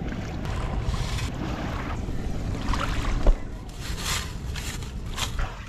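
Wind rumbling on the microphone over small waves washing on the shore, with a few short scraping sounds and one sharp thump about three seconds in.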